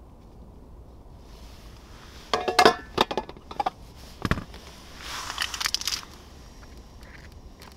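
Handling noises: a quick run of clicks and crinkles, then a single knock, then about a second of rustling.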